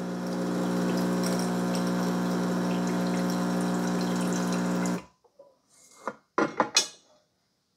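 Farberware espresso maker's pump running with a steady hum as it primes, pushing water out through the steam wand into a steel pitcher; it cuts off suddenly about five seconds in, shutting off on its own. A few short knocks follow near the end.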